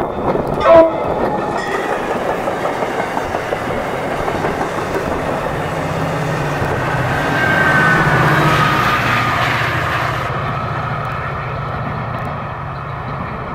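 MARC push-pull commuter train passing close by, wheels clattering and rumbling on the rails, with a brief loud sharp sound about a second in. Its diesel locomotive, pushing at the rear, passes with a low engine drone that is loudest about 8 s in; after about 10 s a more distant train rumble.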